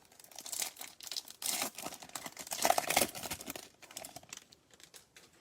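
Foil trading-card pack wrapper crinkling and tearing as the pack is opened, with an irregular crackle that is densest in the middle and thins out near the end.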